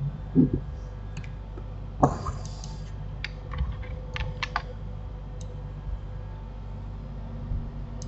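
Computer keyboard keystrokes: scattered single clicks, with a quick run of several about three to four and a half seconds in. There is a short low thud near the start and a sharper knock about two seconds in, over a steady low hum.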